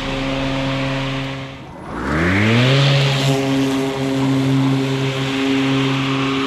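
Lawn mower running at a steady pitch; about two seconds in it sags briefly, then rises in pitch as it comes back up to speed and holds steady.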